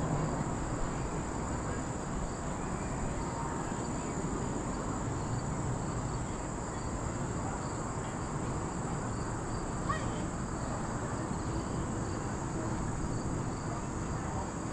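Steady high-pitched chorus of insects in the trees, over a constant low rumble. There is one brief click about ten seconds in.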